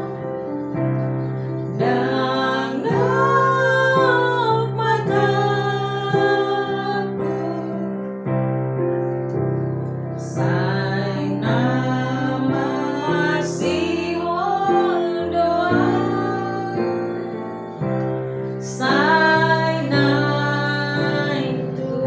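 Women singing a song to digital piano accompaniment. The piano holds chords under the voices, which sing in phrases with short breaks between them.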